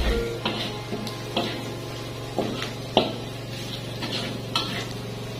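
Metal spatula scraping and clacking against a wok as sliced chilies are stirred into frying ground spice paste, over the sizzle of the oil. About six sharp clacks come at uneven intervals, the loudest about three seconds in.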